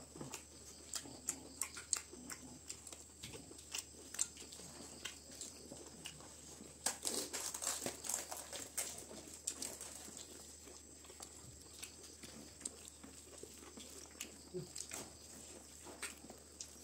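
Close-up eating sounds from two people eating rice by hand off a banana leaf: chewing and many short, sharp mouth clicks, with fingers working through the rice on the leaf. The clicks come thickest about seven seconds in.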